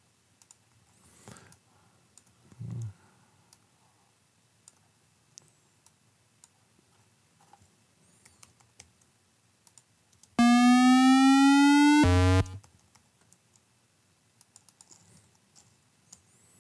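Scattered mouse and keyboard clicks, then about ten seconds in a loud buzzy synthesizer tone rising steadily in pitch for about a second and a half: a synthesized video-game race car acceleration. It drops suddenly to a lower pitch, like a downshift, for half a second and cuts off.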